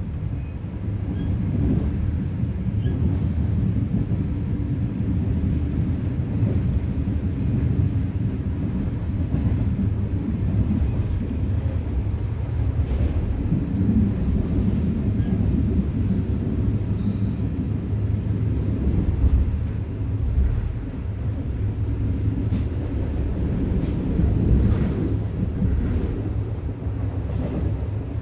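Passenger train running, heard from inside the carriage: a steady low rumble of wheels on track, with faint light ticks now and then.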